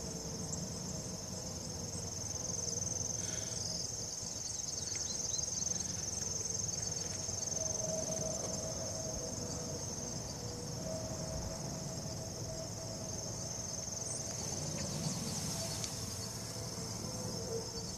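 Steady high-pitched chorus of insects, with a faint low rumble underneath.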